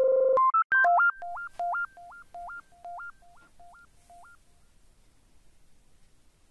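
Short synthesizer jingle: a loud buzzy low tone, a quick run of rising beeps, then a repeating two-note low-high figure that echoes away and dies out after about four seconds.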